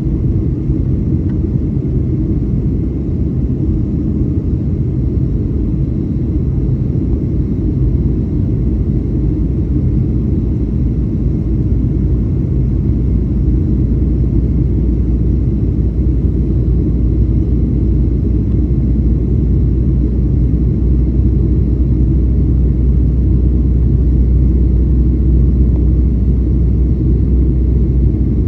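Cabin noise inside a Boeing 737 airliner in flight: a steady, deep rumble of engines and airflow, growing a little heavier in the lowest range during the second half.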